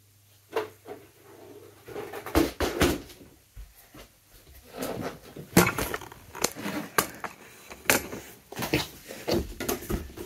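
Irregular knocks, bumps and rubbing of the recording camera being jostled and falling over, with several sharper knocks scattered through.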